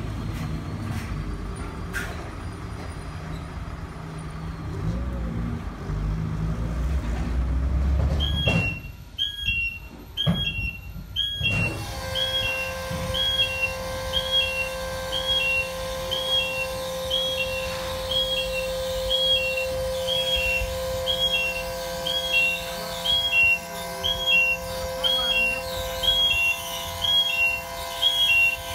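A lorry's engine running with a low rumble as it reverses, cutting out about eight seconds in. A repeating two-note electronic warning beep then starts, about one and a half times a second, over a steady hum that runs on.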